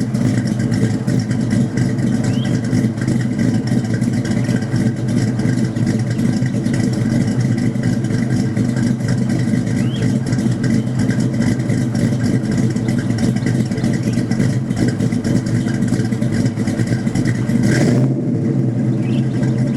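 Exhaust of a 1994 Mustang 5.0's 302 V8, breathing through shorty headers, an off-road H-pipe and Flowmaster mufflers, running steadily at about idle. A brief louder burst comes near the end.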